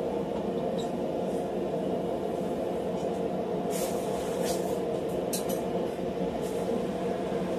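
Steady running roar of a blacksmith's forge, even throughout. A few faint light clicks come about halfway through.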